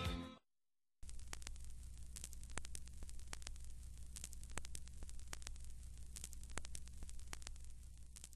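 Music cuts off in the first half-second; after a brief gap, a steady low hum and hiss of recording static sets in, with frequent small crackles.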